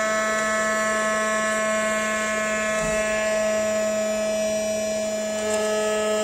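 Small battery-powered DC motor of a homemade cardboard vacuum cleaner running with a steady high whine, the sound that shows it is working and sucking in dust.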